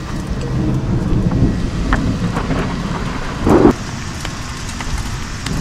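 Excavator running on a construction site: a steady rumble with scattered knocks and one louder burst about three and a half seconds in.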